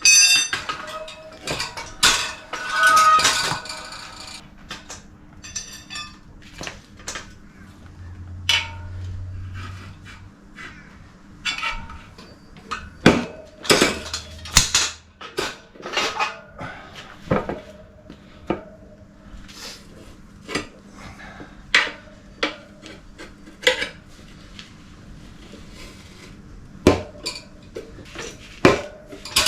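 Metal tyre levers and tools clanking and scraping against a motorcycle wheel rim and a manual tyre changer while a tyre is worked on or off. The knocks and clinks are irregular, and some ring briefly.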